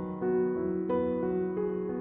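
Slow, soft background piano music, a new note roughly every three-quarters of a second.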